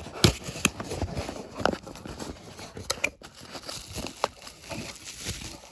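Rustling and crinkling with scattered sharp clicks and taps: a small mystery box and its card packaging being handled and opened by hand.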